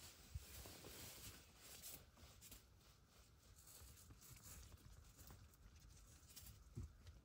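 Near silence: faint rustling and two soft low knocks, one just after the start and one near the end, as a winter ice-fishing rod is picked up and handled.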